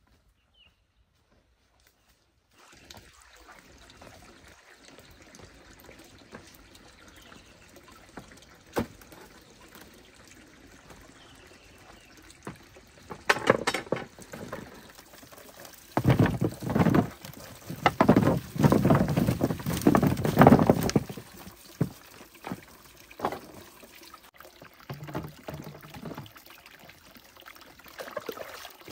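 Water being poured and splashing in uneven bursts, the longest and loudest stretch lasting several seconds past the middle.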